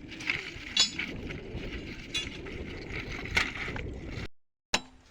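Work noise at a railway weld: a steady rough hiss with a few sharp metal clinks, which cuts off abruptly. After a brief silence, sharp metallic taps begin near the end.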